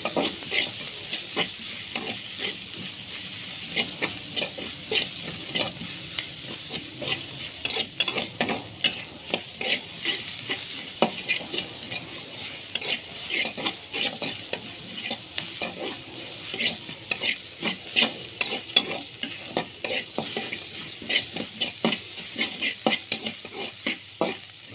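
A metal spatula scraping and tapping around a metal wok in quick, irregular strokes, stirring sliced shallots, garlic and ginger over a steady sizzle as they fry in a little oil until golden.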